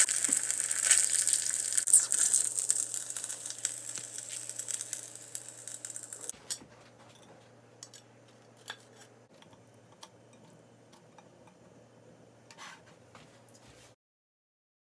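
Boiled dumplings frying in oil in a pan, sizzling, the sizzle fading away over the first six seconds. After that only a few faint clicks, then it cuts to silence shortly before the end.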